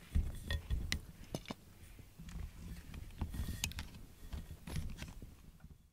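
A cat rubbing and bumping its face and fur against the camera, giving irregular close rustles, low thumps and small clicks on the microphone. The sound cuts off suddenly near the end.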